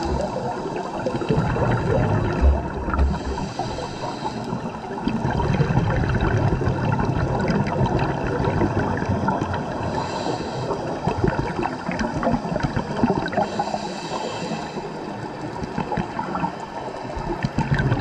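Scuba diver breathing on a regulator underwater: exhaled bubbles rumble and gurgle in spells of a few seconds, with a short hiss from the regulator on the inhale between them, over a constant fine crackle.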